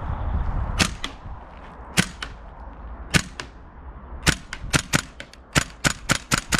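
WE MP7A1 gas blowback airsoft submachine gun firing 0.30 g BBs: a few single sharp shots about a second apart, then a quicker string of shots, several a second, in the second half.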